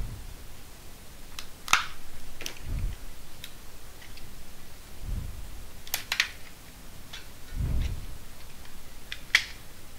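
Sharp plastic clicks and snaps as a plastic spudger pries along the seam of a Samsung TV remote's case, unclipping its plastic tabs, with a few dull bumps from handling the remote.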